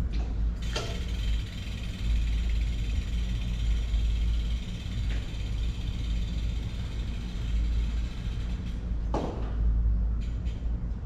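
Riding a road bike on pavement: wind buffeting the camera's microphone and tyres running on the road make a steady low rumble, with brief louder rushes about a second in and near the end.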